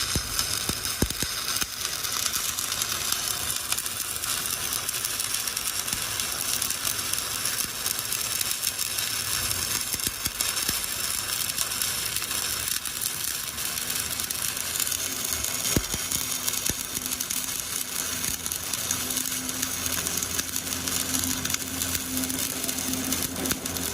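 Stick (SMAW) welding arc crackling and sizzling steadily as the electrode burns while laying the hot pass. A faint low hum joins in about fifteen seconds in.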